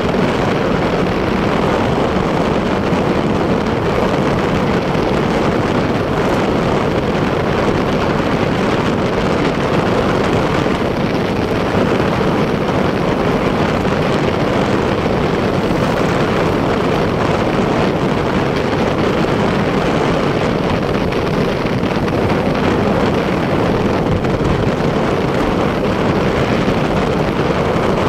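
Motorcycle riding at a steady speed, its engine and tyres running under a constant rush of wind on the microphone.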